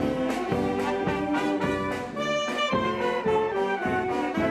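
Marching municipal wind band playing as it walks: trumpets, euphonium and saxophones with clarinets, over a regular beat of about four strokes a second.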